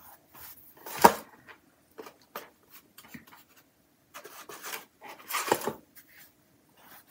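Flat paintbrush dry-brushing acrylic across a canvas in short scratchy strokes, with a brief pause to pick up paint from a plastic plate palette. A sharp knock comes about a second in, and a louder rasping stroke about five and a half seconds in.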